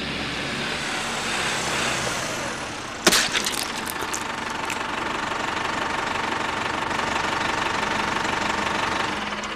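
Ford New Holland 7740 farm tractor's diesel engine running steadily, with one sharp knock about three seconds in.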